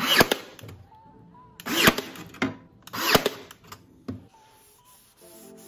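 A power drill run in short trigger bursts, three main bursts about a second and a half apart plus a small one near four seconds, each spinning up and down in pitch. Background music comes in near the end.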